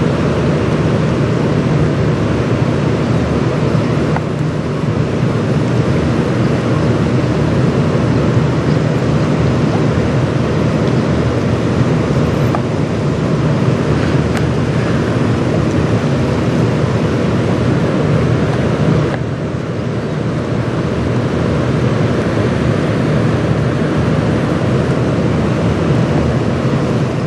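Steady low drone of a passing Great Lakes bulk freighter's engines, mixed with wind noise on the microphone.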